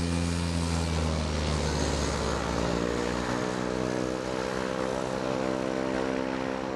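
Air Tractor AT-502's turboprop engine and propeller running loud and steady with a hissing whine as the plane rolls along the runway. The pitch of the drone rises slightly from about halfway through.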